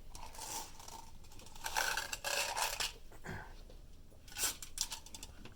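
Small metal clicks and scrapes of screws being handled and driven with a screwdriver to fasten a graphics card's bracket to a steel PC case, in three short bouts.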